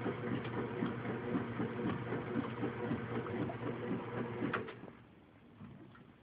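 KitchenAid top-load washing machine running with its freshly repaired agitator, the motor and transmission turning the drum with a steady, rhythmic whir. It winds down and stops about five seconds in.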